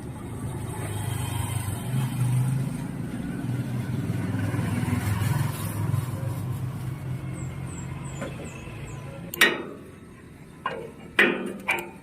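A motor vehicle's engine running steadily as a low rumble. About nine and a half seconds in it falls away, and several sharp metallic clanks follow, like tools striking metal parts.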